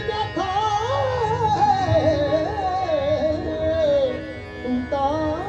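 Live Punjabi Sufi devotional music: a male singer holds a long, drawn-out sung line that glides and wavers in pitch, over the steady sustained notes of harmoniums.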